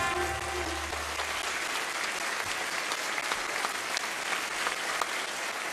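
Audience applauding at the end of the routine, with the last low note of the music dying away in the first second and a half.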